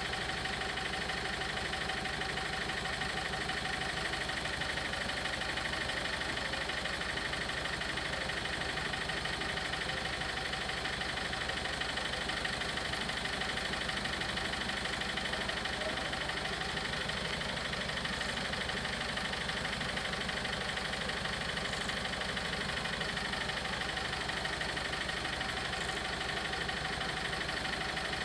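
Railway level-crossing warning bells ringing continuously in fast, even strokes while the crossing is closed, over a car engine idling.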